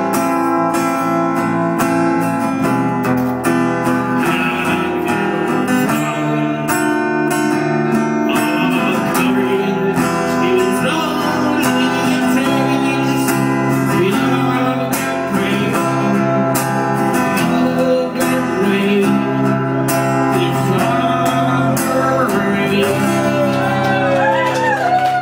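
Live band playing loud amplified music: electric guitar and bass guitar, with harmonica cupped into the vocal microphone and singing. Near the end a lead line wavers up and down in pitch.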